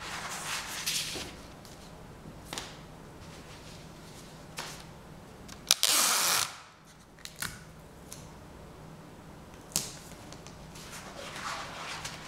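Paper and adhesive tape being handled on a desk: rustling, scattered sharp clicks, and one loud rasping burst lasting under a second about six seconds in.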